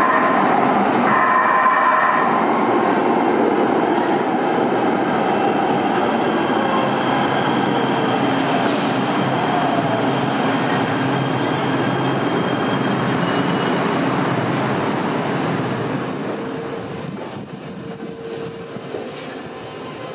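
LA Metro light rail train running through an underground station, a steady rumble of wheels and motors that dies down near the end as the train moves off.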